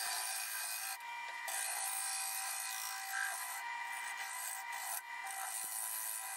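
Hollowing tool cutting the inside of a sycamore box spinning on a wood lathe: a steady scraping hiss of wood being cut into shavings, breaking off briefly about a second in and again near five seconds as the tool leaves the wood.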